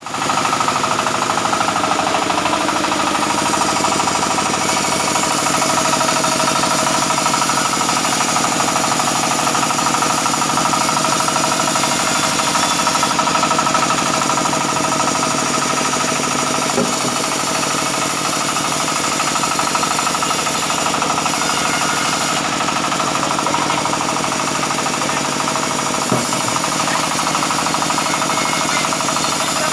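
Sawmill band saw and its drive machinery running steadily, with two brief knocks, one a little past halfway and one near the end.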